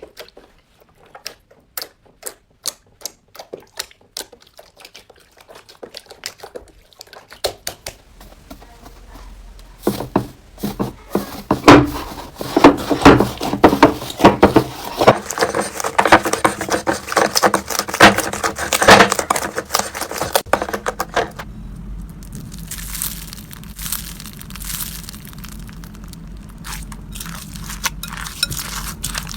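Slime being squeezed and poked, giving sharp crackling and popping clicks. The clicks are sparse at first, turn dense and loud from about a third of the way in, and ease off to a quieter crackle for the last several seconds.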